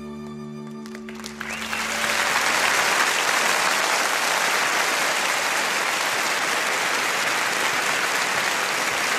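The last held chord of a piece of music fades out in the first two seconds as an audience breaks into applause, which then carries on steadily.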